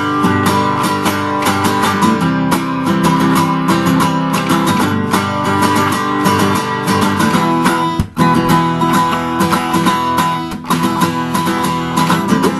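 Acoustic guitar being strummed in a steady rhythm, with a brief break in the strumming about eight seconds in.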